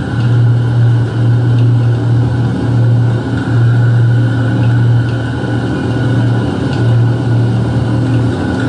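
Live dark-ambient electronic noise drone played through a PA: a loud, heavy low hum that swells and dips every second or two, under a grainy hiss and a thinner steady tone higher up.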